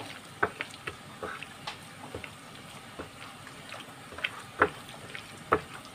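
A hand kneading and mixing wet raw chicken mince batter with yogurt paste and spices on a plate: soft, irregular squelches and smacks, a few a second, with a couple of sharper ones in the second half.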